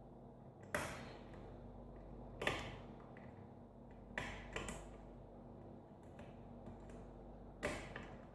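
Sharp metallic clicks of a lock pick working the pin stack of a Sargent five-pin mortise cylinder during single pin picking, five clicks spaced out, two close together about four seconds in.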